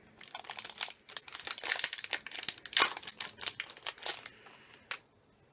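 Plastic packaging crinkling and crackling as a small eyeshadow is unwrapped by hand: a quick, irregular run of crackles that stops about five seconds in.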